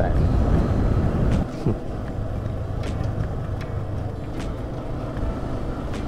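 Motorcycle running at a steady riding pace, its low engine hum mixed with road and wind rumble. The sound drops a little about a second and a half in.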